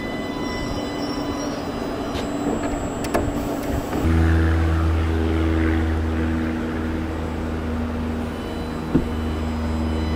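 Island Line Class 484 electric train on the move at a platform: a rumble with thin steady whines, then about four seconds in an abrupt switch to a steady low hum with several held tones from the train's motors and equipment as it pulls in. A single sharp click near the end.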